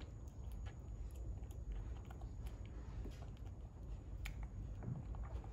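A baby monkey eating soft yogurt and banana: small, irregular smacking and clicking sounds, over a low steady rumble.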